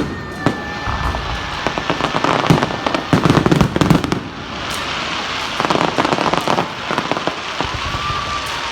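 Fireworks going off: a steady run of bangs and dense crackling, with two thick flurries of rapid crackles, one a couple of seconds in and one past the middle.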